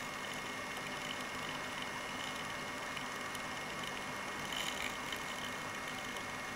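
Tiny electric motor and gear train of a 1:76-scale radio-control model truck running, a steady thin whine, briefly a little louder a little past halfway.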